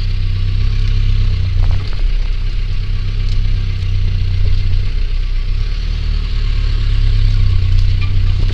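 Vehicle engine running steadily at low revs, with a few light knocks.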